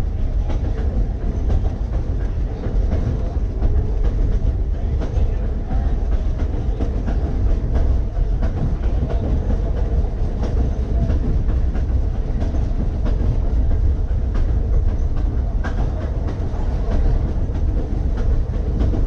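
Key System 187 electric railcar running along the track: a steady low rumble of steel wheels on rail with a constant hum and scattered clicks from the rails.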